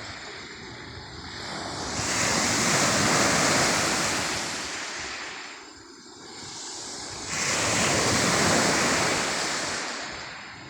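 Sea waves breaking on the shore: the rushing surf swells up twice, about two and seven seconds in, each time dying back down before the next wave.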